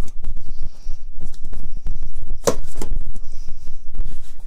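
Handling noise from a hand-held phone: a steady low rumble with light scratching as fingers rub near the microphone, and one sharp click about two and a half seconds in.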